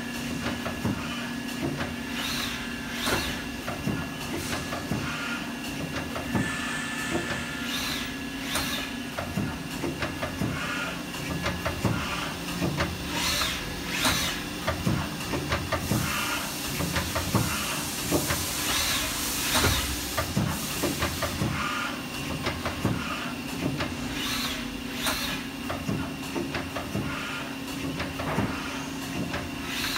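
Haas SL-20T CNC lathe running, with a steady hum and hiss. Its tool turret indexes over and over, giving pairs of short knocks every few seconds.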